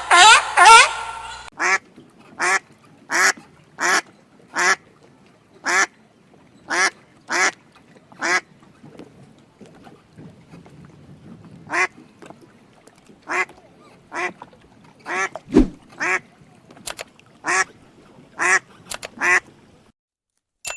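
Duck quacking over and over: a long series of short, separate quacks, a little more than one a second, after a louder, denser cluster of calls at the start.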